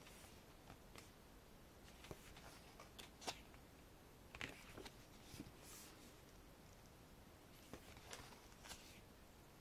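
Faint, near-silent rustles of photobook pages being turned by hand, a few short paper sounds spread through the quiet.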